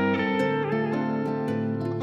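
Background music with plucked string notes over held tones.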